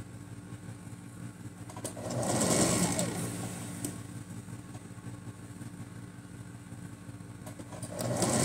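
Singer electric sewing machine stitching pleats into fabric, its motor humming steadily and speeding up in louder spurts about two seconds in and again near the end.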